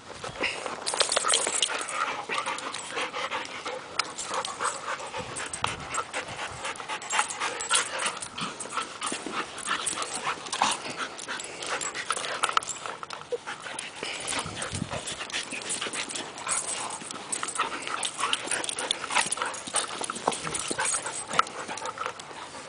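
A Rottweiler mix and another dog play-fighting, making dog noises over a dense, unbroken run of short clicks and rustles.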